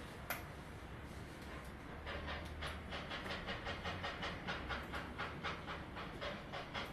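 Steam locomotive chuffing: a steady hiss that, about two seconds in, turns into rhythmic puffs of about four to five a second. There is a single sharp click just after the start.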